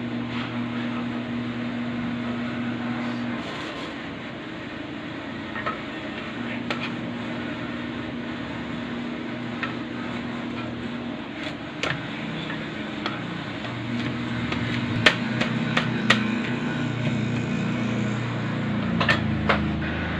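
Small clicks and taps of garlic cloves being handled and peeled at a chopping board, a few sharp taps coming close together in the second half. Underneath runs a low steady hum that fades out and comes back twice.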